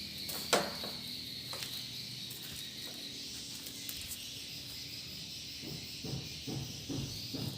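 High, steady chirring twitter of swiftlets inside their nesting house, with a few sharp clicks and some low knocks and thuds near the end.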